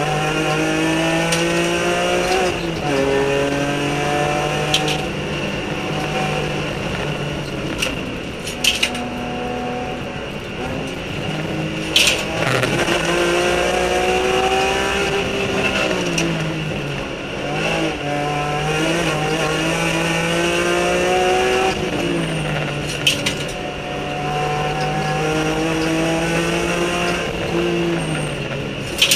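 BMW E46 M3 race car's engine at full throttle, heard from inside the car. Its pitch climbs and then drops sharply at each gear change, about five times, and a few sharp knocks come through, the loudest about twelve seconds in.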